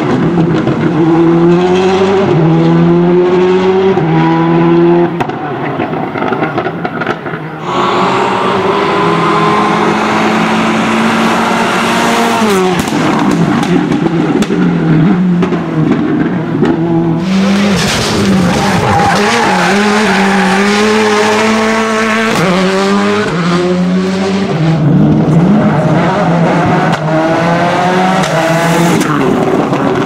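Citroën Xsara WRC rally cars, each with a turbocharged 2.0-litre four-cylinder engine, driving flat out past the microphone in a series of passes. The engine note climbs and drops in steps as the gears change.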